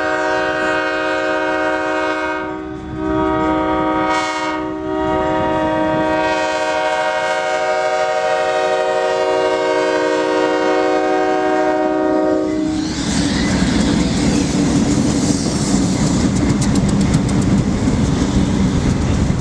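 Diesel locomotive's multi-chime air horn blowing a long chord of several notes for about thirteen seconds, breaking briefly twice in the first five. The horn then stops and the train runs close by, engine rumbling and wheels clicking over the rail joints.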